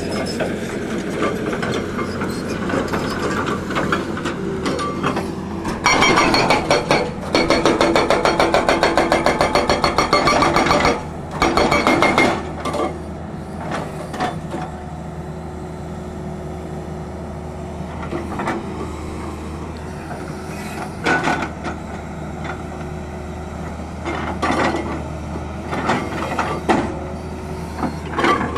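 Hydraulic rock breaker on a Tata Hitachi excavator hammering rock in a rapid, even rhythm of about six blows a second, loud from about six to eleven seconds in and again briefly near twelve, with scattered single knocks later. The excavator's diesel engine runs steadily underneath.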